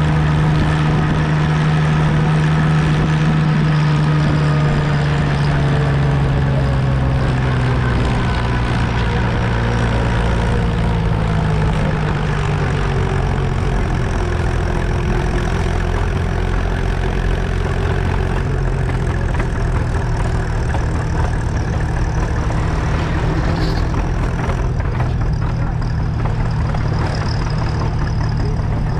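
Farm tractor engine running steadily at road speed, heard from the tractor itself; its pitch eases slightly lower in the first half, then holds.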